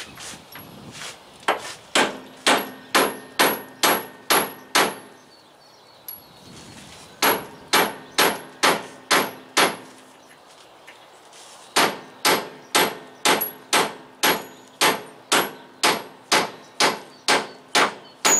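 Hammer blows on steel, about two a second, in three runs of several strikes with short pauses between, each blow ringing briefly: driving a new truck torsion rod into place at the rear axle.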